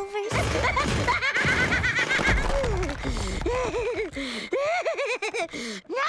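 Cartoon soundtrack: a noisy clatter for the first couple of seconds with a rapid, high warbling cartoon voice over it, then a cartoon character's swooping, wordless vocal sounds.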